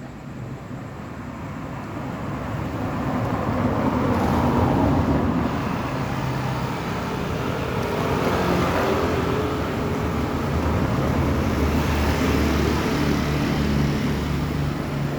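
A motor vehicle's engine running nearby with traffic noise. It grows louder over the first four seconds or so and then holds steady.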